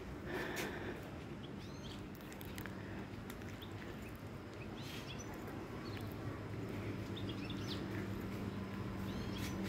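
Small birds chirping in short, scattered calls, with a faint steady low hum coming in about halfway.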